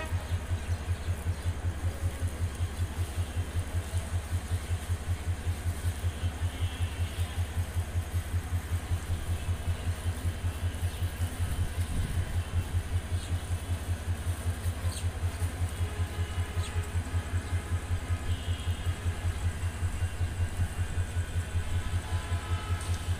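Diesel locomotive engine idling with a steady low throb, several beats a second.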